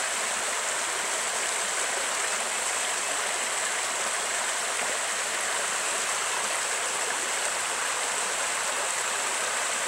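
Shallow, rocky creek running over a riffle: a steady rush of water.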